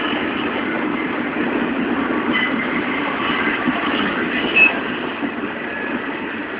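Double-stack intermodal freight train's container well cars rolling past: a steady rumble of steel wheels on rail with a few short, high wheel squeals. There is one sharp knock about four and a half seconds in.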